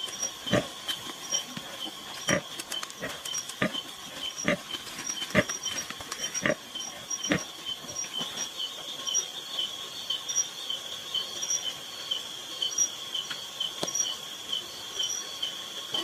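A sow grunting in short, low grunts while her newborn piglets suckle, the grunts coming every second or so and thinning out in the second half. Behind them night insects chirp steadily in a rapid, regular high pulse.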